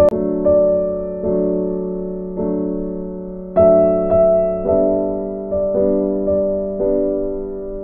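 Background music of slow, gentle keyboard chords, a new chord struck about once a second and each left to fade.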